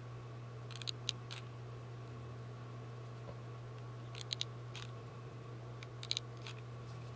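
Three short bursts of small, sharp clicks from hand craftwork on a paper-towel mask, about a second in, just past four seconds and around six seconds, over a steady low hum.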